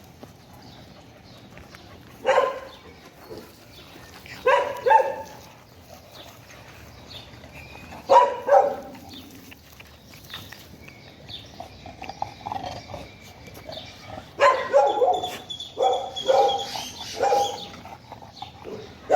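Dog barking in short single and double barks every few seconds, then a quicker run of barks near the end.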